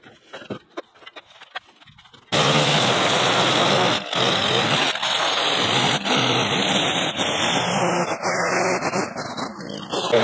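Light rustling and clicks of debris being handled, then about two seconds in a line trimmer starts cutting through weeds and brush with a loud, steady, buzzing noise.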